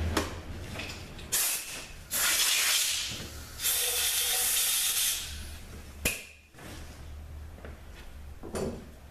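Compressed-air blow gun giving three blasts of hissing air, the longest about a second and a half, blowing aluminium chips out of freshly tapped holes in a 45RFE valve body. A sharp click follows a second after the last blast.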